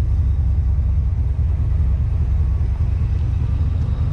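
The 1980 Pontiac Trans Am's turbocharged 4.9 V8 idling, a steady low rumble.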